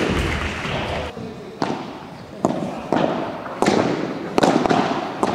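Padel ball in a rally: a series of about six sharp hits and bounces from rackets and court, coming irregularly about half a second to a second apart.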